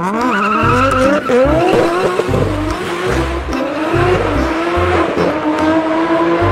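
Race car engine sound, revving up in a series of rising pitch sweeps as if shifting through gears, then climbing more slowly, with tyre squeal.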